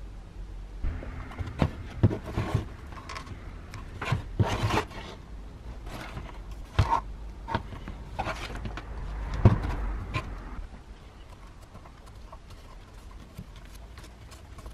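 Hands handling a Makita electric planer, motor off: scattered knocks, clicks and scrapes of the tool body, busiest in the first ten seconds, with the sharpest knock about nine and a half seconds in, then quieter.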